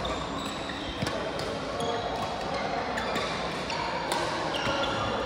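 Badminton hall sounds: shoes squeaking briefly and repeatedly on the court floor, and two sharp hits about a second and about four seconds in, over background chatter.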